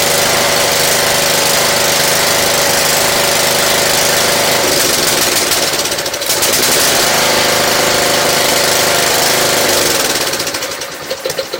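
Small gasoline engine running steadily, with a brief dip about six seconds in; its sound falls away about ten seconds in.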